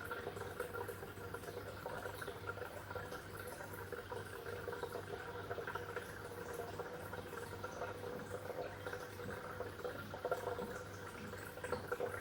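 Water bubbling and trickling steadily, with a low steady hum underneath.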